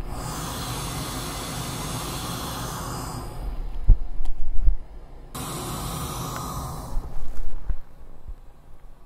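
Steady rushing test noise, a hiss with a low rumble, heard through binaural in-ear microphones under noise-cancelling over-ear headphones. It is broken twice by loud bumps and rubbing as the headphones are handled on the ears, about four seconds in and again about seven seconds in.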